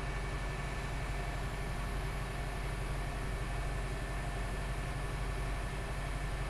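Oshkosh M1120A2 HEMTT 8x8 truck's diesel engine running steadily while its hydraulic hook-lift arm pulls a flat rack up onto the truck.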